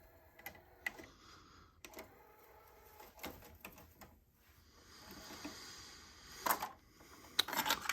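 Quiet, scattered mechanical clicks and knocks, with a few louder ones close together near the end.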